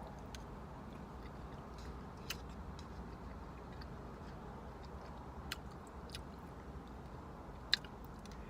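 Someone chewing food quietly, with a few sharp mouth clicks scattered through over a low steady hum.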